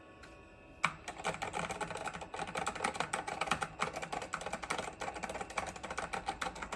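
Fast, random typing on a computer keyboard: a dense, uneven run of key clicks starting about a second in.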